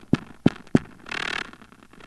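Male wolf spider (Gladicosa gulosa) making its courtship 'purr': three sharp clicks in the first second, then a short buzzy pulse, one of a series that repeats about once a second. It is the vibration signal the male uses to court a female.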